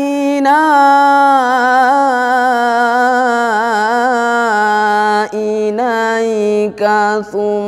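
Young male reciter chanting the Quran in the melodic tilawah style: one voice holding long drawn-out notes with wavering ornaments, the pitch stepping down about halfway, with a few short breaks for breath near the end.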